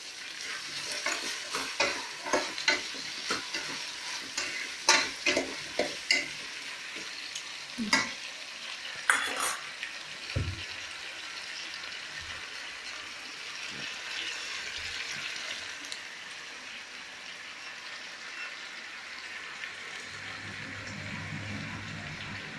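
Brinjal (eggplant) pieces sautéing in oil in a stainless-steel pot, with a steady sizzle throughout. For roughly the first half, a spoon stirs them with many clicks and scrapes against the steel; after that only the sizzle goes on.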